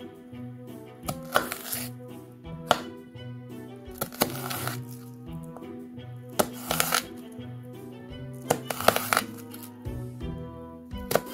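Kitchen knife cutting through a raw onion and knocking on a wooden cutting board, a crunchy slice and knock about every two seconds, over steady background music.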